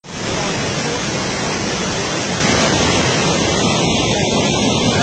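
Floodwater rushing through a swollen wadi, a steady wash of noise mixed with wind buffeting the microphone, stepping up in level about halfway through.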